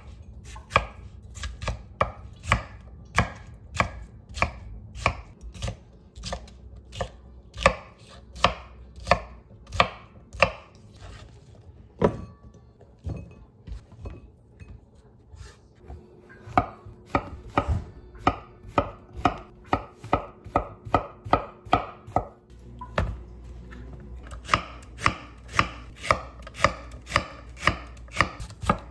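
Kitchen knife chopping bell peppers and celery on a bamboo cutting board, a steady run of blade knocks at about two to three a second. The knocks thin out for a few seconds near the middle, then pick up again.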